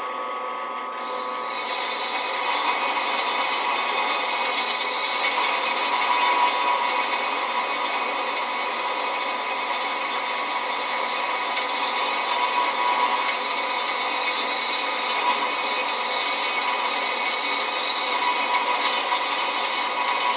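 Drill press running steadily as its bit bores through stacked, tack-welded pieces of steel, a constant whine of several pitches over a grinding hiss; it is a little quieter in the first second or so.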